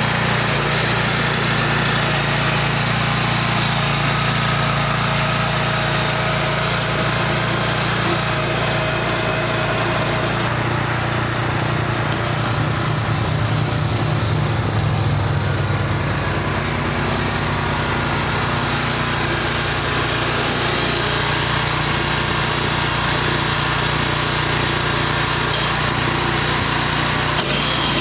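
BCS 712 walk-behind rear-tine tiller's small gasoline engine running steadily as the tines churn soil. For a few seconds about halfway through, the low hum pulses.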